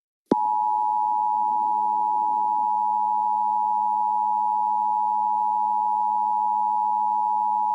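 Emergency Alert System attention signal: two steady sine tones near 853 and 960 Hz sounding together as one harsh, unwavering alarm tone, starting a moment in.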